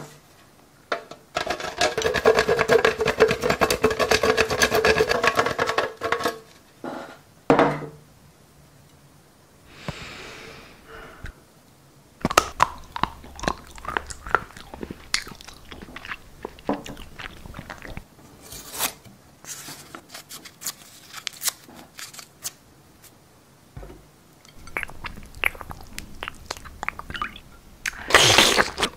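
A yellow bar rubbed fast on a metal box grater, a dense rasping that lasts about five seconds. Then a lull, followed by scattered small clicks and wet crackles of the sauced spaghetti being handled, and a loud short crunch near the end.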